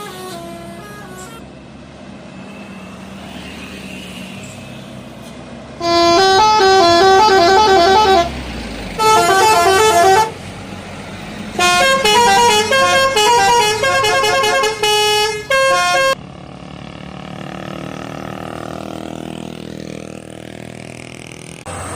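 Bus telolet horn, a set of electric trumpet horns, playing its multi-note tune in three loud bursts beginning about six seconds in. Each burst is a quick run of stepped notes, and the longest comes last. A bus engine and traffic noise run underneath and between the bursts.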